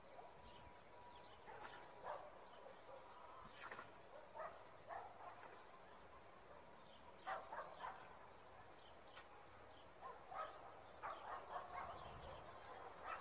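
Faint rural background with a distant dog barking in short, irregular bouts, several barks close together near the end.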